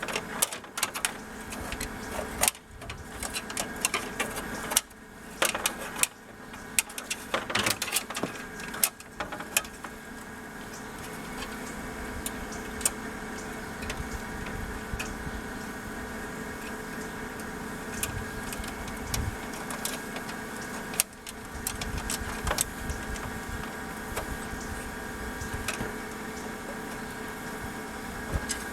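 A steady mechanical hum from a running machine, with scattered sharp clicks and knocks over it, most of them in the first third and again near the end.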